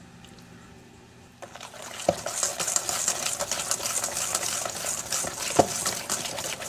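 Wire whisk stirring thick chocolate brownie batter in a stainless steel bowl: a quick, steady scraping that starts about a second and a half in, with the wires knocking against the bowl twice.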